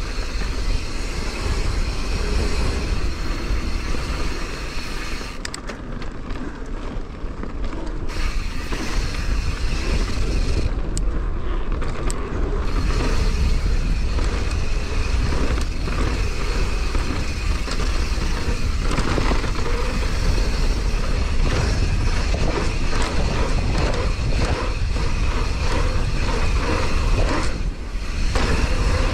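Downhill mountain bike descending a rough bike-park trail, recorded by a camera on the rider or bike: constant wind rumble on the microphone, with tyre noise and frequent rattles and knocks over the rough ground, easing briefly a few times.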